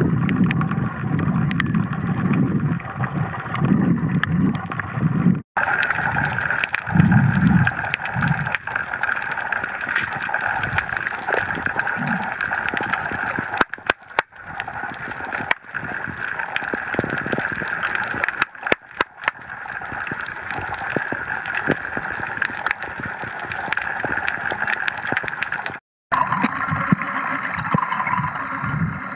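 Underwater sound picked up by a snorkeler's camera: muffled water gurgling and sloshing with scattered clicks and low surges. It breaks off abruptly twice and the tone changes each time.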